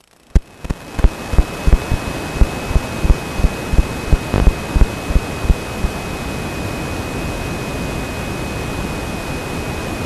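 Analog FPV video receiver static with no signal from the drone's transmitter: a steady hiss with a thin high whine, starting about half a second in. Irregular low thumps run under it for the first six seconds or so.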